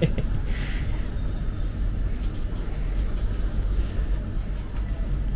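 Steady low rumble of a train running in the yard, without distinct knocks or changes.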